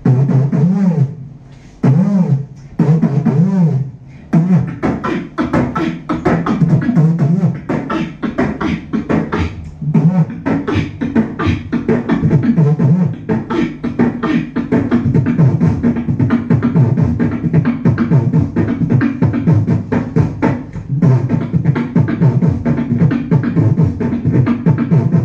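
Beatboxing into a handheld microphone. It opens with a few short gliding pitched vocal sounds, then breaks into a fast run of percussive mouth beats. From about ten seconds in, a steady hummed tone runs under the beat.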